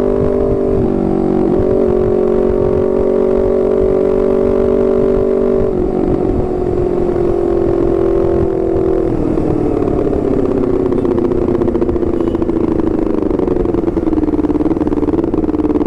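Honda CBR250RR sport bike with an aftermarket R9 racing exhaust running at steady high revs, its pitch dropping slightly a few times and then falling slowly over the last several seconds as the bike eases off.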